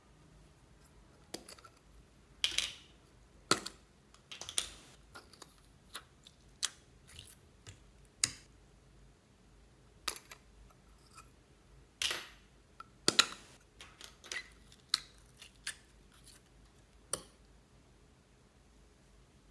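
Small plastic slime tubs with snap-on lids being handled and opened: irregular sharp plastic clicks and pops, some loud, as lids are pried off and the tubs are worked over a glass bowl.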